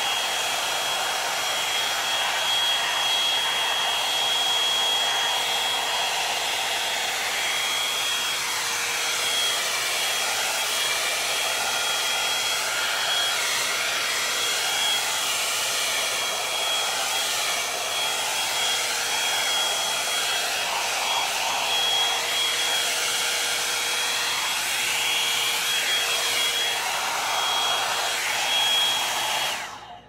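Revlon One-Step Volumizer hot-air brush running on wet hair: a steady rushing blow with a thin high whine, the rush shifting as the brush is worked through the hair. It is switched off and cuts out at the very end.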